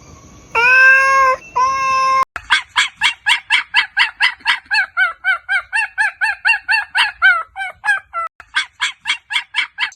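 Animal calls: two drawn-out calls, then after a sudden change a fast, even series of short calls, about four a second, until near the end.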